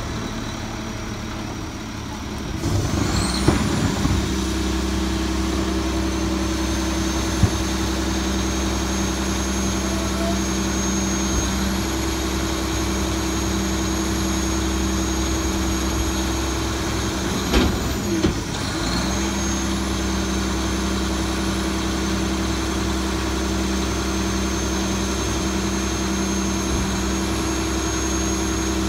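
Bridgeport side-loader garbage truck's engine running steadily, speeding up about three seconds in as a high hydraulic whine comes in, then holding at that speed. The whine dips briefly and comes back past the middle. A few sharp knocks from the loading.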